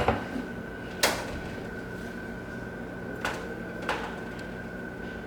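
Four short, sharp knocks and clacks of kitchen things being handled and set down, over a steady hum.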